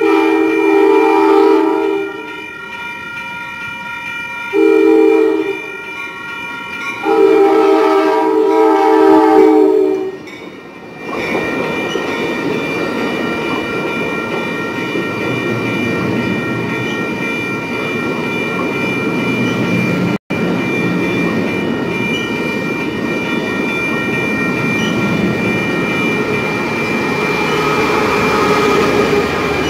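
Amtrak Pacific Surfliner train sounding its horn three times, long, short, long, as it approaches. It then rolls past with a steady rumble of wheels on rail that grows louder near the end.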